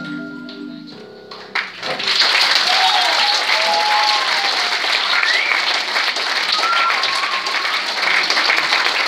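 The last marimba notes ring and die away, then an audience breaks into steady applause about two seconds in.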